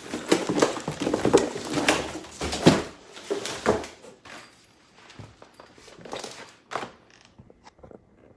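Packaging being handled: dense crinkling and rustling for about four seconds, then quieter scattered light taps and knocks.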